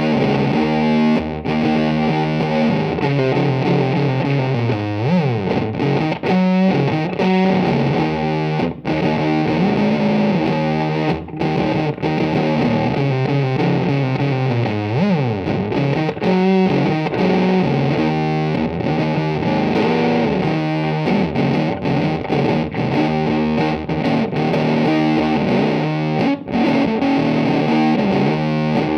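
Electric guitar played through a handmade silicon fuzz pedal, the T-Lab Coughing Cat. It plays thick, distorted riffs with a few sliding notes and short breaks between phrases.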